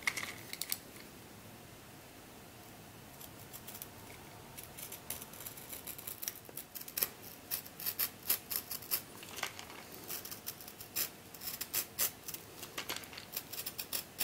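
Utility knife blade cutting and scraping around the seam of a hard plastic tube package: a few sharp clicks at the start, a brief lull, then a run of irregular clicks and scratches that comes thicker from about four seconds in.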